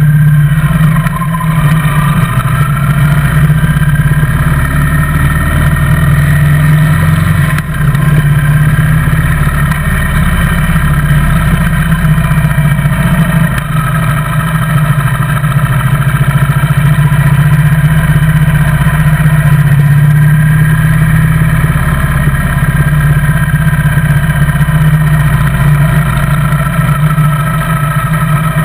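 Motorcycle engine running steadily under way, heard from a camera mounted on the bike, its pitch rising a little in the first few seconds.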